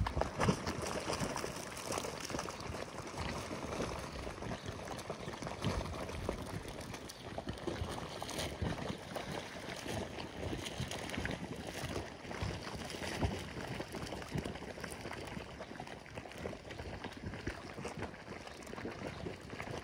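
Geothermal boiling mud pool: hot mud bubbling, popping and splattering in many short, irregular bursts that run on without a break.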